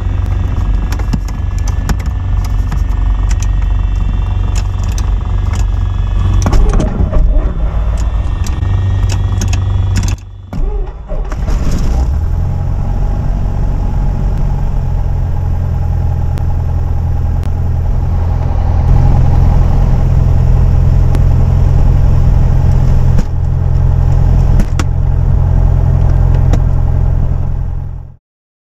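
Piper Cherokee's piston engine starting and running, heard in the cockpit: ragged and clattery for about the first ten seconds, then after a brief dip it settles into a steady idle that picks up a little about two-thirds of the way in. It cuts off abruptly just before the end.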